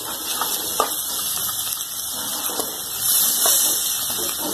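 Hot oil sizzling in a kadhai under freshly added grated boiled potato and fried spice masala: a steady frying hiss that swells a little about three seconds in, with a few faint ticks.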